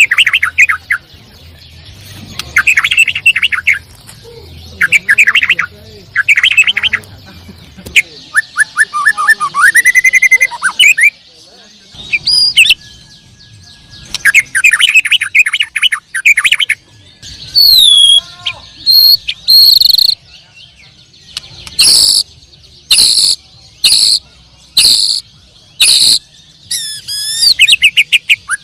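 White-rumped shama (murai batu) singing: varied phrases of clear whistles, quick trills and sweeping notes, then a run of loud sharp notes about once a second near the end.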